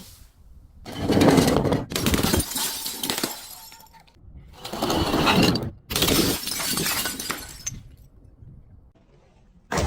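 Glass bottles shattering and crunching as they are crushed, in several long bursts of breaking, grinding glass.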